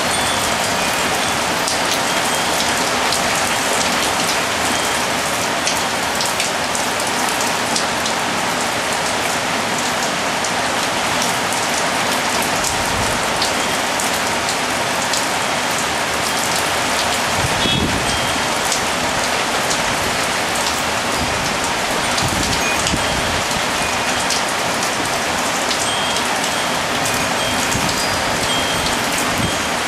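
Steady, heavy tropical rain shower pattering on a balcony, with a few faint, brief wind chime tones near the start and again near the end.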